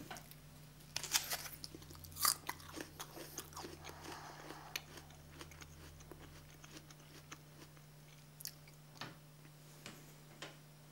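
A bite taken out of a crisp pear: two loud crunches about one and two seconds in, then chewing, with small crunches thinning out towards the end.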